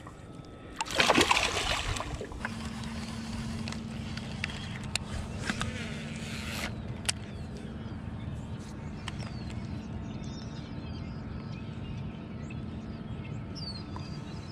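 A released bass splashing at the surface as it swims off, about a second in. Then a steady low hum runs on under faint water and outdoor noise.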